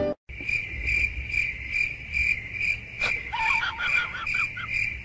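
A cricket chirping: a steady high-pitched trill pulsing about twice a second. A few short rising squeaks sound over it about three seconds in.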